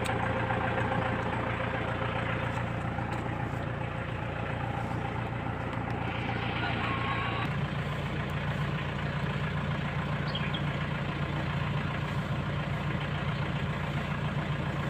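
Iseki tractor's engine idling steadily, its low note shifting slightly about halfway through.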